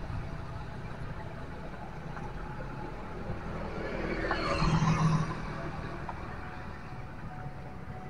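Street traffic: a motor vehicle passes close by, its engine and tyre noise swelling and fading about four to five seconds in, over a steady low rumble of traffic.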